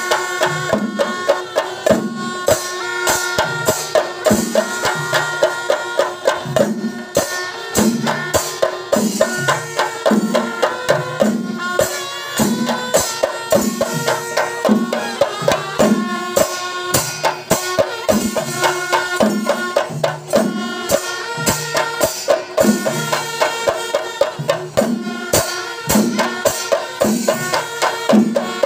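Kerala chenda melam: a large ensemble of chenda drums beaten with sticks in a dense, driving rhythm, with a deep beat repeating a little under twice a second. A steady held tone sounds beneath the drumming.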